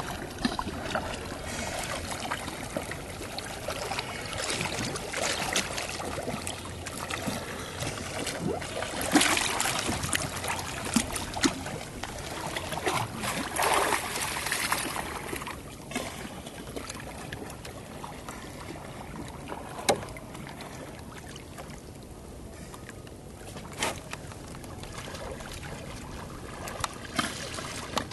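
Sea water sloshing and splashing, with louder surges of splashing about a third and half of the way in and a few sharp knocks.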